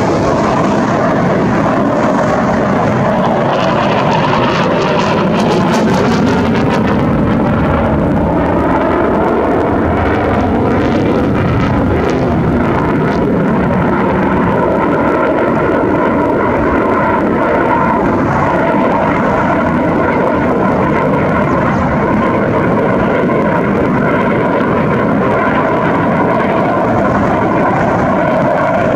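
JF-17 Thunder fighter's single RD-93 turbofan engine, a loud continuous jet noise as the aircraft flies overhead, with a sweeping, phasing rush as it passes.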